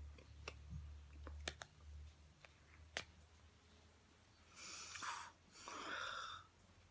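Faint clicks and taps of hands striking and brushing the body and clothing while signing, over a low hum that fades out about two seconds in. Two short breathy hisses follow about five and six seconds in.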